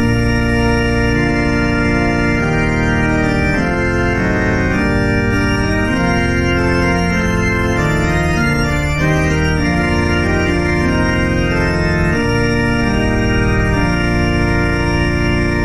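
Organ playing a slow series of sustained chords that change about once a second. It starts and cuts off abruptly.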